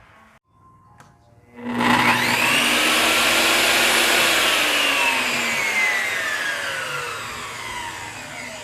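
Bosch GTS 10 J table saw switched on without cutting: the motor and blade come up to speed with a sudden loud whine, run for a few seconds, then the saw is switched off and the whine slowly falls in pitch as the blade spins down.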